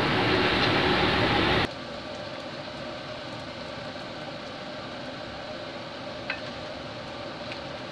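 Batter-coated sweet potato strips sizzling in hot frying oil, a steady hiss. The sizzle drops suddenly to a quieter level about two seconds in, and there is a single faint click near the end.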